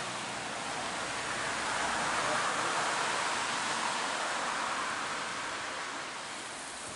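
Steady rain falling on open water, an even hiss that swells a little midway and eases near the end.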